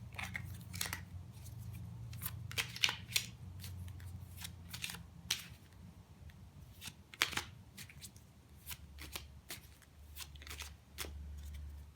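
Tarot cards being shuffled and handled: a series of irregular short flicks and snaps of card stock.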